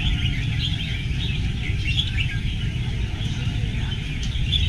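Many caged red-whiskered bulbuls singing at once: a dense chorus of overlapping chirps, over a low steady rumble.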